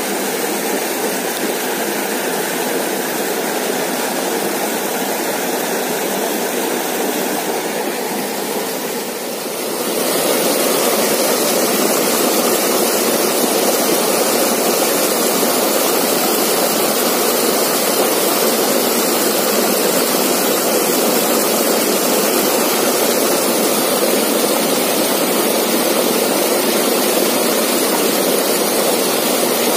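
Shallow stream rushing steadily over small rocky cascades, an even splashing rush that gets louder about ten seconds in.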